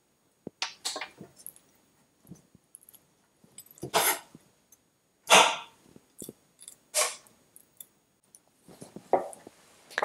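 Kitchen knife cutting through a lemon onto a wooden chopping board: a few short, irregular slicing and knocking strokes, the loudest about four and five and a half seconds in.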